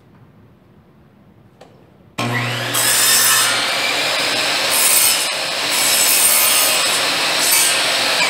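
Milwaukee miter saw switched on about two seconds in, its motor winding up to a loud high whine and cutting a wood scrap, the sound swelling several times as the blade bites into the wood. This is a test cut to check the miter angle.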